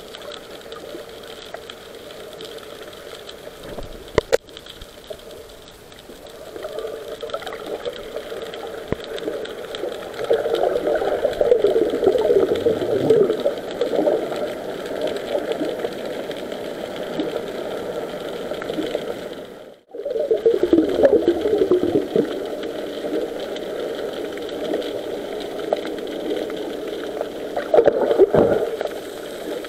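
Muffled underwater noise picked up by an action camera in its waterproof housing: a steady hum with several swells of water swirling and rustling around the housing, and a sharp click about four seconds in.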